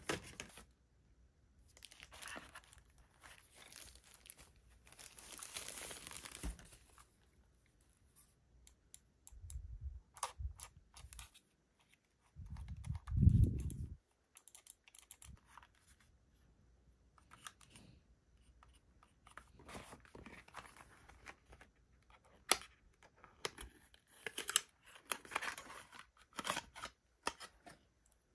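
Paper and plastic packaging rustling and crinkling as a small gadget is unboxed, with light clicks and taps from handling the box and the device. A short, muffled thump comes about 13 seconds in.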